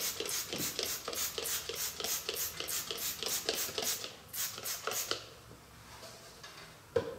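Plastic trigger spray bottle being pumped quickly, about four hissing squirts a second, spraying degreaser onto a cast-iron rotary table top. The spraying stops about five seconds in, and a single knock follows near the end.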